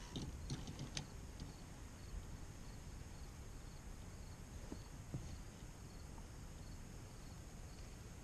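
Quiet outdoor ambience on calm water: a steady low rumble of wind or water, with a faint high ticking repeating about twice a second. A few sharp clicks sound in the first second and two faint knocks about five seconds in.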